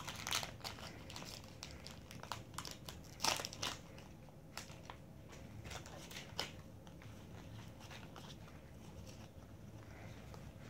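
Foil wrapper of a Pokémon booster pack crinkling as it is torn open and handled, with a run of sharp crackles, loudest about three seconds in. The crackles then give way to a faint rustle of trading cards being pulled out and sorted in the hands.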